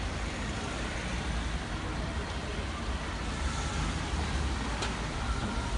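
Steady hiss of hand-held fire extinguishers being sprayed onto a burning car, over a low rumble, with a single sharp click near the end.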